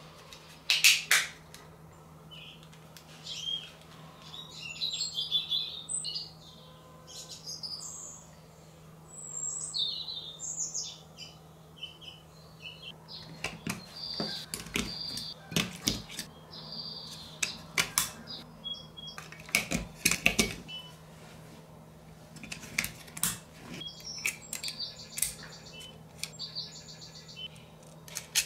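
Clicks and knocks of hands handling plastic wireless-receiver packs and plugging a 3.5 mm jack cable, over a steady low hum, with high chirping sounds between the clicks.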